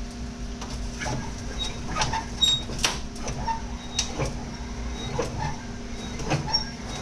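Irregular metallic clinks and taps of hand tools on steel parts as a race car's brake bias adjuster is disconnected, some ringing briefly, over a steady hum.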